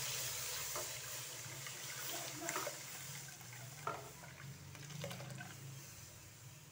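Milk being poured from a metal bowl into a cooking pot: a steady pouring, hissing liquid sound that slowly tapers off, with a few faint clicks along the way.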